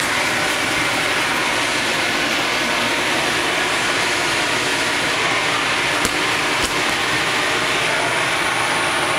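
Electric blower of an inflatable bounce house running steadily: a loud, even rushing noise with a faint high whine, and two brief knocks about six seconds in.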